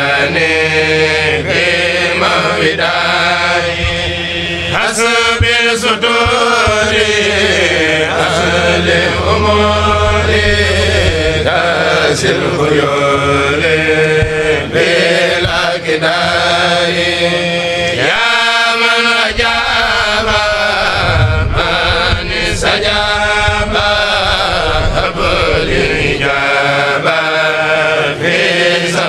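Kourel group chanting an Arabic khassida (Mouride devotional poem) in long melodic phrases that rise and fall, with a steady low hum underneath.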